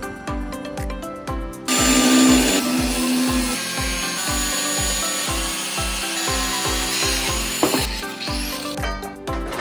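A power tool runs loudly for about six seconds, starting about two seconds in and stopping near the end, with a steady high whine over a noisy cutting or grinding sound. Background music with a steady beat plays throughout.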